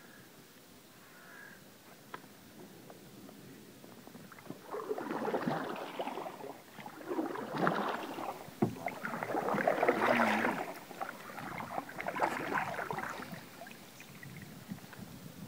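Canoe paddle strokes in the water, heard as irregular splashing bursts about a second apart that begin about four seconds in, with a few sharp knocks among them.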